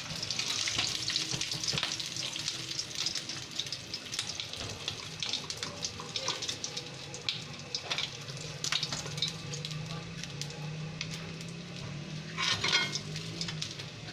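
Fish frying in hot oil in a pan: a steady sizzle full of small crackling pops, busiest in the first half. A brief louder clatter comes near the end.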